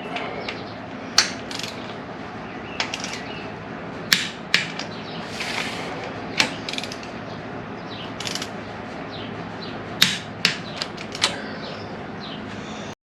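Torque wrench ratcheting and clicking as bolts are tightened to 60 foot-pounds: sharp, separate metallic clicks at irregular intervals.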